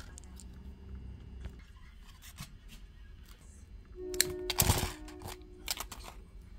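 Hands handling pearl beads and thin craft wire, with small clicks and rustles. About four and a half seconds in there is a louder burst of clicking and scraping as pliers grip and cut the wire. Soft background music with held notes comes in about four seconds in.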